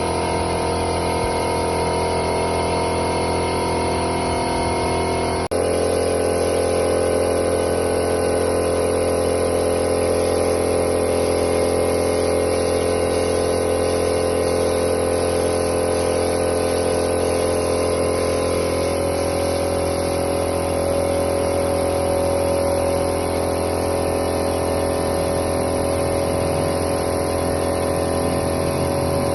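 A machine running steadily with a hum, its tone shifting abruptly about five seconds in and then holding steady.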